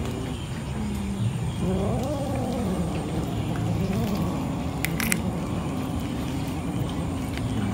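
Cats feeding, one giving a single drawn-out call that rises and falls about two seconds in, over a steady low hum, with a few sharp clicks around five seconds in.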